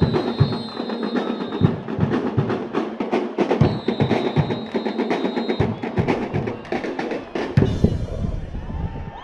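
A drum group of snare and bass drums playing a fast, driving beat, with a high steady tone held twice over it, and a drum roll near the end.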